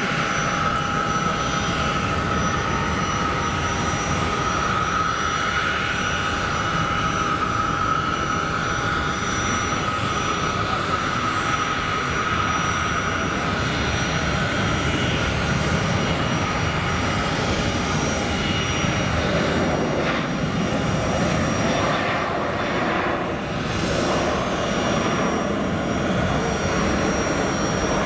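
Twin Pratt & Whitney JT12 turbojets of a Sabreliner 40 running at taxi power: a steady high jet whine over a rumble, the whine drifting slightly lower through the first half.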